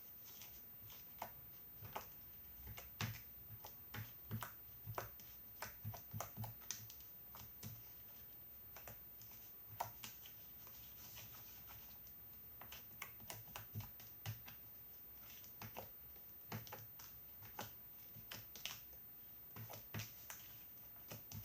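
Slime being stirred with a paintbrush in a small container to mix in toothpaste: faint, irregular light clicks and sticky taps, coming in clusters with a sparser stretch around the middle.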